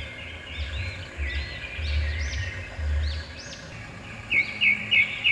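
Birds singing outdoors: many short rising-and-falling chirps, then a run of loud, quick repeated notes near the end. A low, uneven rumble runs underneath.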